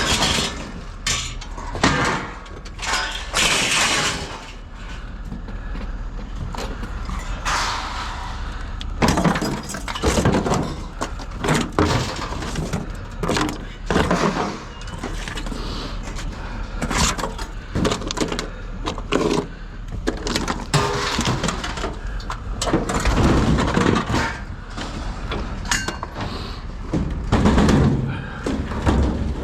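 Scrap being handled: a run of irregular crashes, clanks and breaking impacts as pieces are thrown, dropped or broken apart, over a steady low hum.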